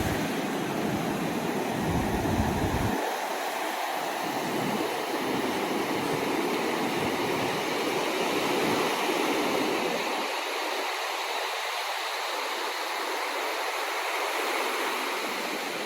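Ocean surf washing onto the shore, a steady rush of waves. A low rumble under it drops away about three seconds in.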